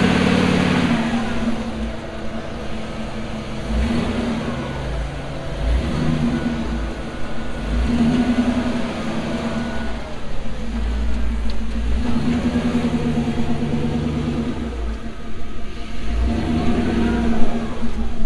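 Rock-crawling buggy engine revving in repeated short surges and dropping back toward idle, over a low rumble, as the buggy works over rock.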